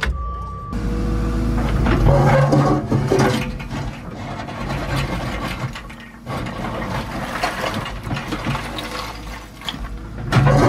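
Excavator engine and hydraulics running under load as the bucket works through broken concrete and rubble, with knocks and scraping from the concrete chunks.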